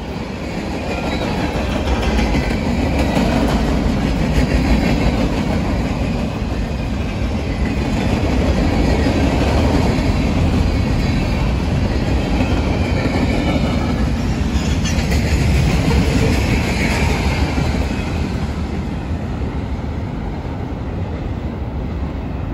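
A freight train's cars (tank cars, covered hoppers and boxcars) rolling past on steel wheels and rail: a loud, steady rolling noise of wheels on track.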